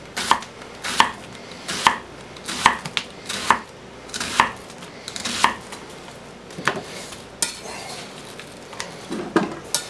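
Chef's knife slicing through a red onion and knocking on an end-grain wooden cutting board, one cut about every second in a steady rhythm, the cuts thinning out in the last few seconds.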